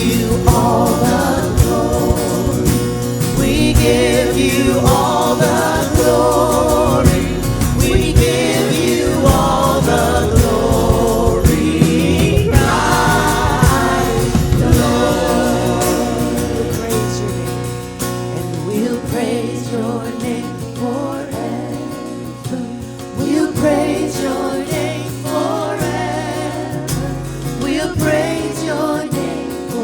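Worship band and singers performing a gospel-style song, several voices singing over instrumental backing. About halfway through, the bass drops away and the music gets a little quieter.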